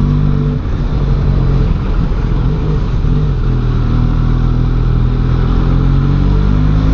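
Benelli Leoncino 500's parallel-twin engine running under way, its note mostly steady with small dips, then rising as it picks up revs near the end.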